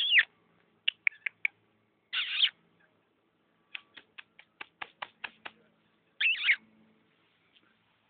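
A person coaxing a cat with high squeaky kissing noises and runs of quick tongue clicks, with a short hissing "psst" between them.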